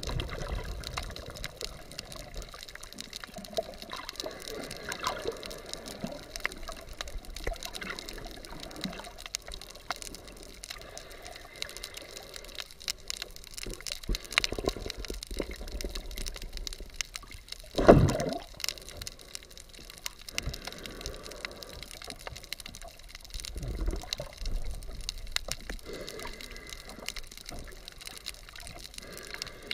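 Underwater sound heard through a GoPro's waterproof housing: muffled sloshing water movement with a steady fine crackle of clicks, and one louder whoosh about eighteen seconds in.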